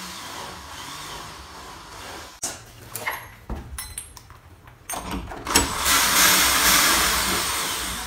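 Corded Black & Decker drill/driver driving a screw: a short run of clicks and knocks as the drill and bit are handled, then the motor running steadily for the last few seconds.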